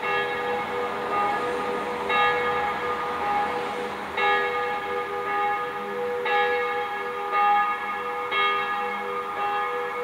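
Bells ringing, a fresh strike about every two seconds, each ringing on into the next.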